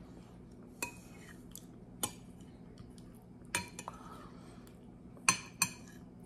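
A metal spoon clinking against a glass bowl while food is scooped out: about five sharp clinks, each with a short ring, the last two close together near the end.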